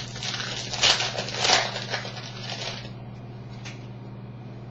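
Baseball trading cards being handled by hand: a quick run of rustles and flicks as cards are shuffled through and laid down, loudest twice in the first two seconds. It thins out about three seconds in, with one more flick after.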